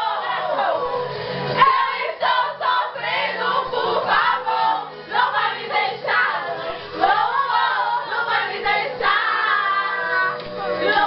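A group of voices singing together, choir-like, with several voices overlapping throughout.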